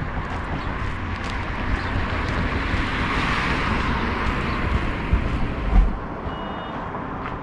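Vehicle travelling on a road: steady road and wind noise that swells in the middle and drops off about six seconds in, with low wind buffeting on the microphone. A short high beep sounds near the end.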